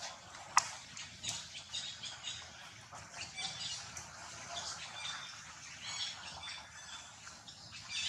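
Many short, high animal chirps and squeaks, with one sharp click just over half a second in.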